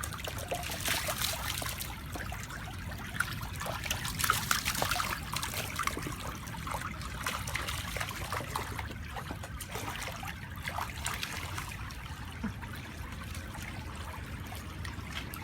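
Shallow brook trickling and babbling over stones, with many small irregular splashes and gurgles, busiest in the first few seconds.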